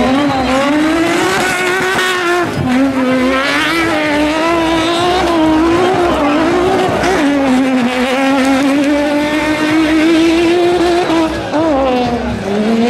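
Car engine held at high revs while spinning donuts, its pitch wavering up and down. The revs drop sharply and climb back about two and a half seconds in and again near the end.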